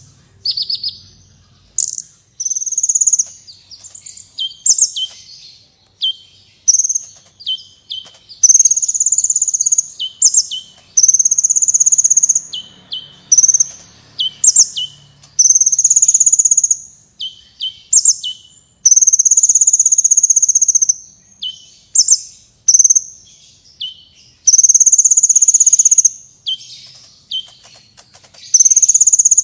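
A kolibri wulung sunbird singing a loud, high-pitched song. Long steady notes of about a second alternate with quick notes that slide sharply down, in a pattern that repeats.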